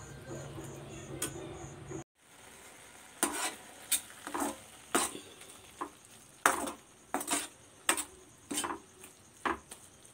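A metal slotted spoon scrapes and knocks against a stainless steel pan, about a dozen sharp, irregular strokes from about three seconds in, as it stirs grated carrot cooked down in milk until the milk has reduced. A steady hum fills the first two seconds and cuts off abruptly.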